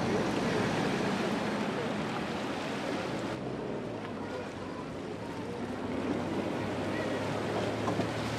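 Vintage amphibious cars driving through shallow lake water and out onto the shore: engines running with a steady low hum under water splashing and churning around the hulls. The sound changes abruptly about three and a half seconds in.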